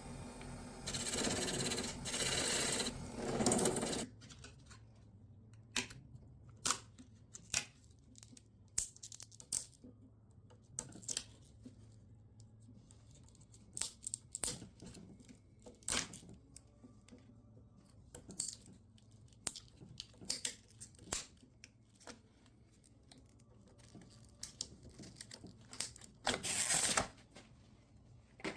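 Workshop hand-work sounds: about three seconds of loud rustling noise at the start, then scattered light clicks and taps of small objects and tools being handled, with another brief burst of noise near the end.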